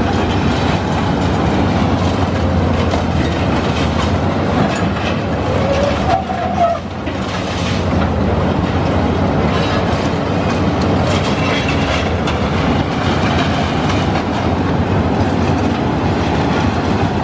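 Cat high-reach demolition excavator running under load while its concrete muncher crushes concrete off the rebar: a steady, loud engine drone under continuous crunching and rattling of breaking concrete.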